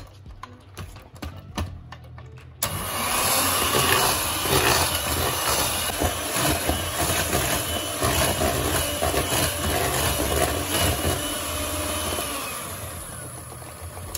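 Electric hand mixer switching on suddenly about two and a half seconds in and running steadily, its twin beaters whirring through cake batter as an egg and flour are beaten in, then dying away near the end.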